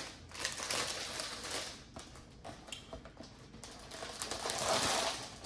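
Rustling and light handling noise of things being moved about on a counter, in two stretches with a quieter gap in the middle.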